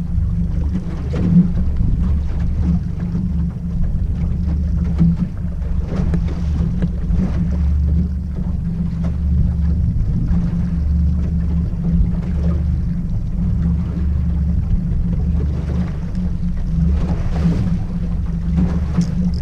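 Outboard motor of a small aluminium boat running at low trolling speed, a steady low drone.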